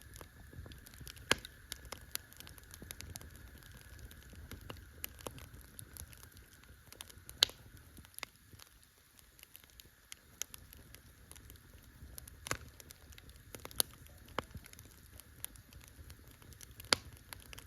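Wood campfire crackling: irregular small snaps and ticks over a low hiss, with a few sharper, louder pops scattered through, the loudest about seven seconds in.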